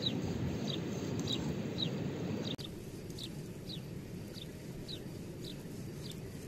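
A bird repeating a short falling chirp about twice a second over the steady rush of a river.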